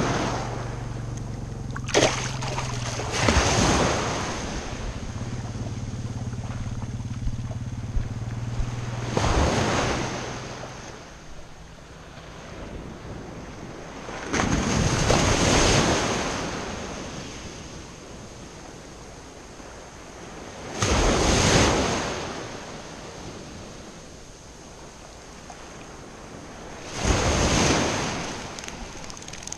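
Small Gulf waves breaking and washing in the shallow surf, a rush that swells and fades about every six seconds. A low steady hum runs under the first third and then stops, and there is a sharp knock about two seconds in.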